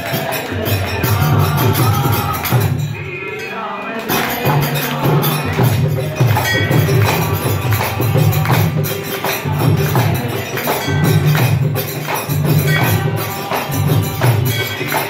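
Live devotional bhajan: a dholak drum beating a steady rhythm, with a harmonium and voices singing into a microphone, over metallic jingling percussion. The drumming drops out for about a second a few seconds in, then comes back.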